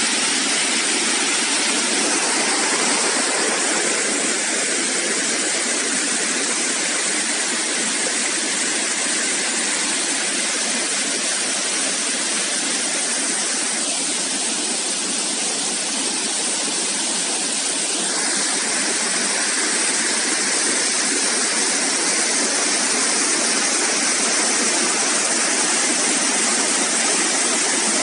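Tiered waterfall carrying a heavy flow of water, falling over rock ledges in a steady, even rush.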